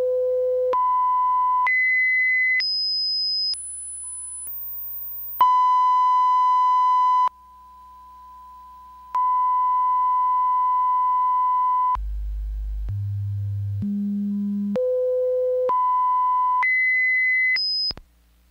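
Broadcast audio line-up test tones: a single pure tone steps up in pitch about once a second, from a middle tone to a very high one. It then settles into a long steady mid-pitched reference tone that drops quieter for about two seconds partway through. A second run follows, climbing from a deep low hum back up to a high tone, and it cuts off suddenly just before the end.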